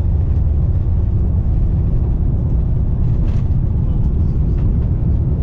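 Jet airliner cabin noise: a steady, loud low rumble of engines and airflow, heard from a seat over the wing.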